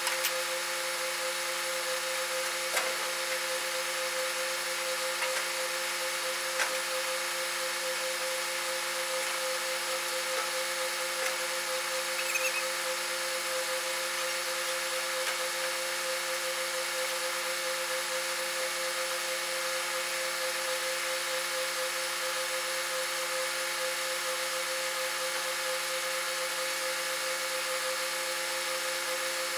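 Boom-truck crane's engine and hydraulic pump running at a steady whine while it hoists the dump out of a dirt pan, with a few light metal knocks in the first half.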